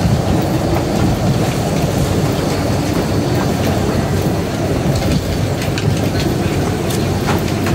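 Storm wind buffeting the microphone: a loud, steady low rumble, with scattered light taps and clicks.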